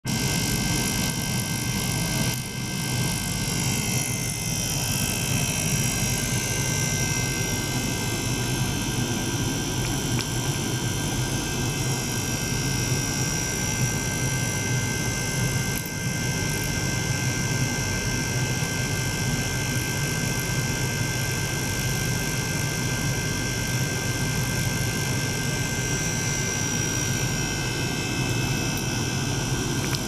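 Small electric liquid-circulation pump running steadily, pushing water through tubing into an ultrasonic bath: a continuous mechanical drone with a hiss and a thin steady high tone.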